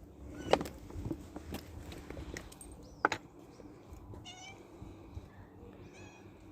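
Cats meowing a few times, short and faint.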